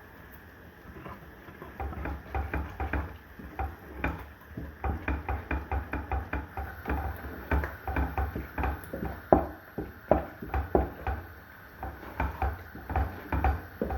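Kitchen utensils knocking and thudding in quick, uneven strokes, several a second. The knocks start about two seconds in and are loudest past the middle.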